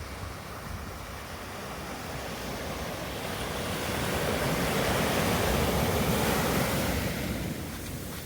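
Ocean surf washing onto a sandy beach: one wave's rush builds to its loudest about five to seven seconds in, then ebbs away.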